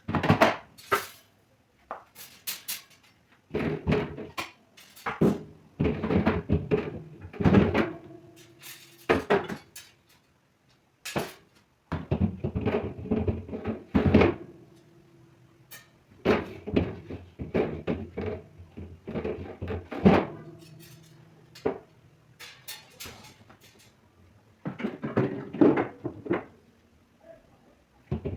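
Repeated knocks, thuds and clatter of household items being handled and set down, with doors or drawers opening and closing in a small room.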